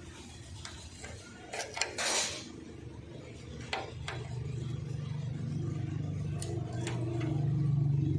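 Open-end spanner clinking against the bolts of a tractor's fuel-tank mounts as they are tightened: scattered sharp metal clicks, with a short scrape about two seconds in. A low engine hum rises steadily through the second half.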